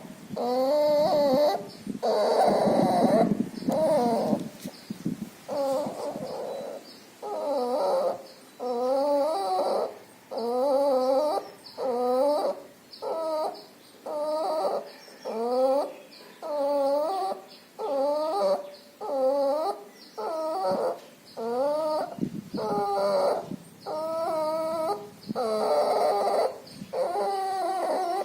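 A puppy sick with pneumonia and distemper making a loud, whimpering noise with each breath, repeating about once a second. Each breath-sound rises and falls in pitch.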